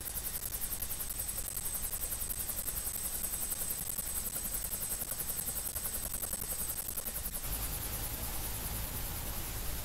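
Helicopter running close by with its rotor turning, a steady rotor and engine rumble with a regular beat; about seven and a half seconds in the sound shifts to a heavier low rumble as the helicopter lifts off.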